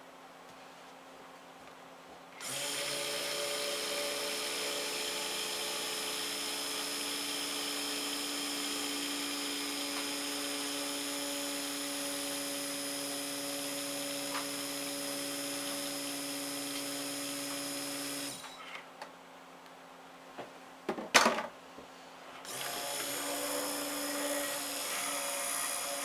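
Electric stick (immersion) blender running at a steady pitch, mixing lye solution into cold-process soap oils. It starts about two seconds in, runs for about sixteen seconds, stops, and after a few sharp knocks starts again near the end.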